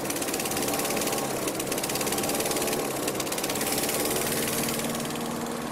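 Small single-cylinder lawnmower engine running steadily with a rapid, even beat. It is fitted with a GEET closed-loop rig that pipes its exhaust back into the intake.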